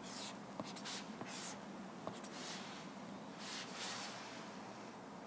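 Stylus drawing strokes on an iPad screen: a handful of short, scratchy swishes, one for each pen stroke, over a faint steady hum.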